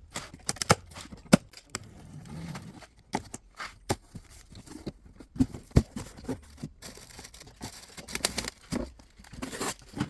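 Plastic parts of a split-system air conditioner's indoor unit being handled and unclipped: irregular sharp clicks and snaps with scraping and rustling between them.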